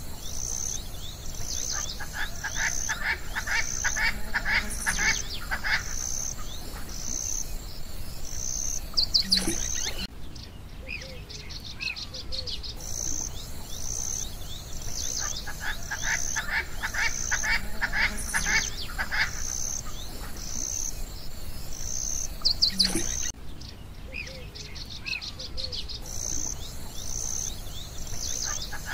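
Birdsong over a steady pulse of high insect-like chirps, a bit more than one chirp a second. The same stretch of sound repeats about every thirteen seconds, like a looped nature soundtrack.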